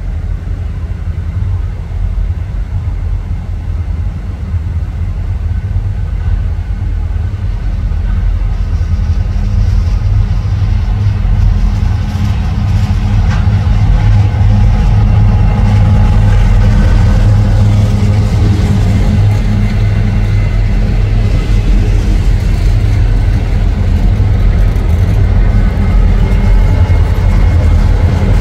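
Diesel locomotive engine running with a heavy low rumble that grows steadily louder through the first half as it draws closer, then holds. Thin high whining tones join in during the second half.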